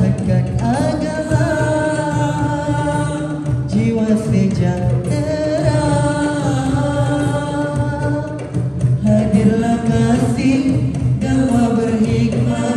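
Voices singing a slow, ornamented, chant-like melody, the notes held and bent with melismatic turns.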